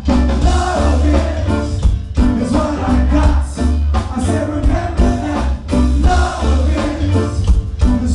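Live rock band playing loud, with heavy bass and drums under the singer's voice, recorded close to the stage.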